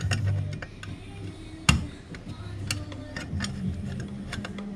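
Light clicks and taps of a small cover being fitted back onto a gas furnace's wiring box, with one sharper knock a little under two seconds in.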